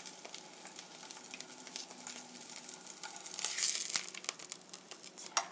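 Tofu frying in oil in a stainless steel pan: a steady, fairly quiet sizzle with fine crackles. About three and a half seconds in it grows louder for a moment as a metal spatula is slid under the tofu in the pan.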